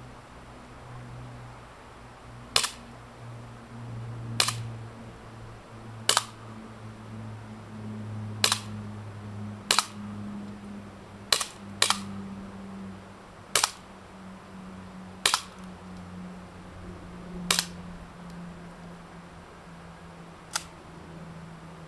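Western Arms Colt M1911A1 gas blowback airsoft pistol firing about eleven single shots, one to two seconds apart, each a sharp snap of gas discharge and slide cycling. A low background hum lies under the shots.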